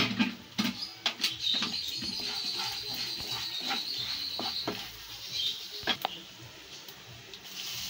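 A spatula stirring roasted peanuts and lentils in a non-stick kadai, clicking and scraping against the pan. A thin, high trilling squeak rises about a second in and lasts about three seconds.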